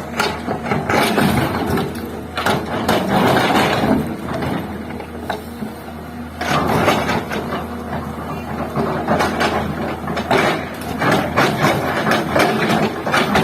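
Hydraulic excavator working: its diesel engine running steadily under irregular clanking and knocking of metal and material.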